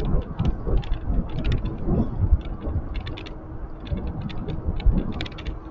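Wind rumbling on the microphone of a handlebar-mounted camera while riding, with frequent sharp rattling clicks from the handlebars and mount as the wheels roll over the road surface.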